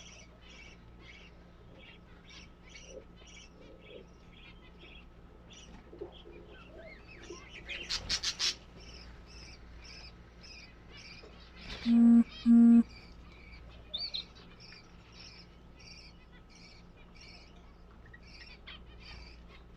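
Small birds chirping over and over, about three short high chirps a second. About eight seconds in there is a brief rapid burst of noise. A little past halfway come two short, loud, low-pitched beeps half a second apart.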